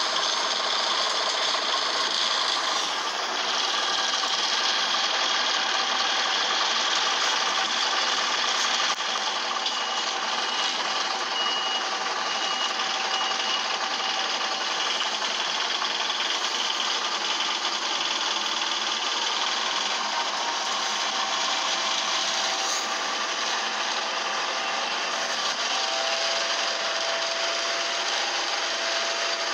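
Loud, steady running noise of an Optare Solo bus heard from inside the cabin, a rough mechanical rattle from its engine, which has a fault that makes it noisy.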